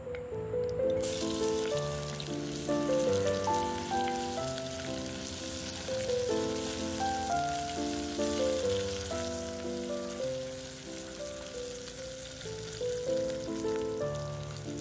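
Sliced onions sizzling as they fry in hot oil in a pot; the sizzle starts suddenly about a second in and then stays steady. Gentle instrumental background music plays throughout.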